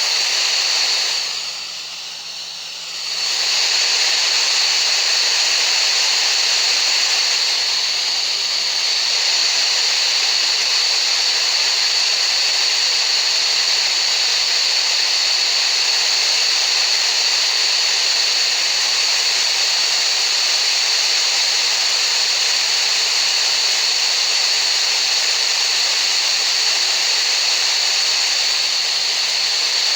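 Steady hissing noise with a high, steady whistle-like tone running through it: a tinnitus-masking sound track. It dips in level for about two seconds near the start, then comes back at full level.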